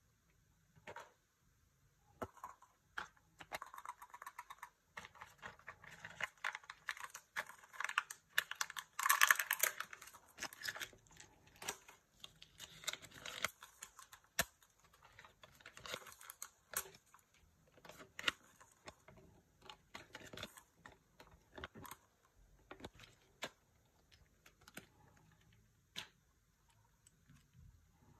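Small plastic toy pieces being handled and fitted together: many quiet clicks and taps, with rustling and crinkling as a folded paper leaflet is opened, densest and loudest in the first half.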